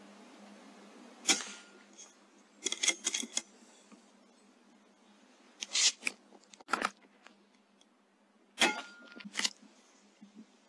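Sharp mechanical clicks and snaps from handling an Airmaks Krait L .22 air rifle: a loud snap about a second in with a quick run of clicks soon after, more snaps around six and seven seconds in, and another loud snap followed by a click near the end.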